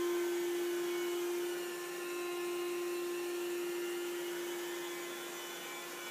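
Rotovac rotary carpet-cleaning machine running as it is pushed over carpet: a steady motor hum with a whir from its spinning brush heads and suction.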